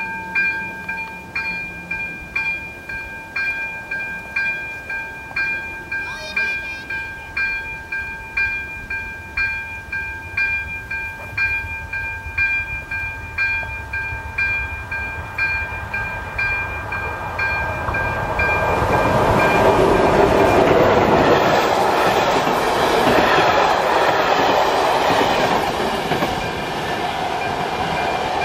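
AŽD level-crossing warning with its electronic ZV-02 bell striking a regular chime about one and a half times a second. From about eighteen seconds in, a passenger train passes, its wheels and coaches loud over the bell, which keeps ringing underneath.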